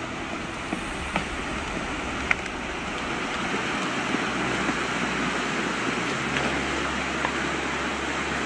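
Muddy water rushing and churning as swamp ground collapses into a sinkhole, slowly growing louder, with a few short sharp snaps in the first few seconds.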